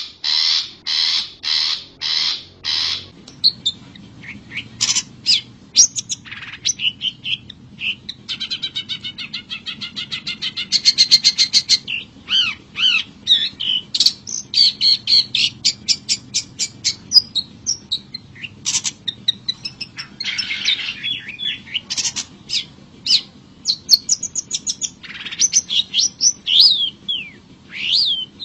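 Long-tailed shrike (cendet) calling: a run of harsh, rasping calls about two a second at the start, then a varied song of short whistles, chirps and rapid trills.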